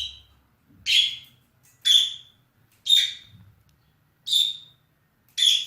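Budgerigar giving a series of short calls, about six of them, roughly one a second.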